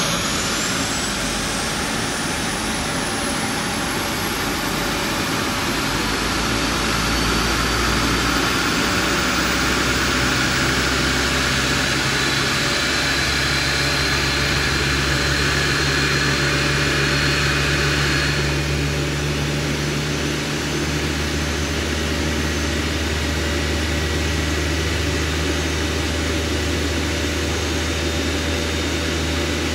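CFM LEAP-1A turbofan on an Airbus A321neo starting up: a thin whine climbs steadily in pitch over a loud rush of air as the engine spools up. About 18 seconds in, the high whine falls away and a steady low hum carries on as the engine settles toward idle.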